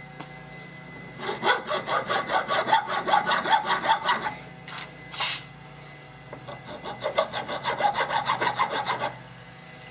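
Hand file rasping on the soft metal of an AR-15 rear sight aperture, filing off its corners. There are two runs of quick short strokes, about five a second, with a pause and a couple of single strokes in the middle.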